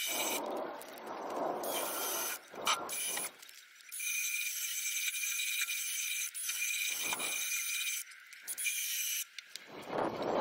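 Hand ratchet clicking in irregular short strokes as rusty bolts are backed out of a car's fuel filter mount from underneath.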